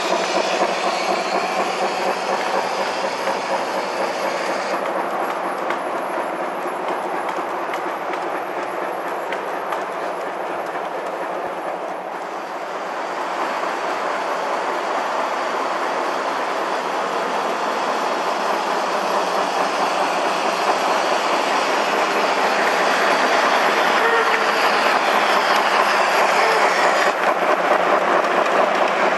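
Gauge 1 (1:32 scale) model passenger train running on the track, its coach wheels clicking over the rail joints in a steady clickety-clack. It gets louder over the last several seconds as the coaches pass close by.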